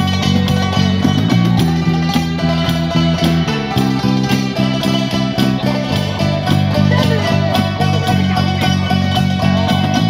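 Live music from several khim, Thai hammered dulcimers, their strings struck with beaters in quick repeated notes, over an electric bass guitar playing low sustained notes that change every second or two.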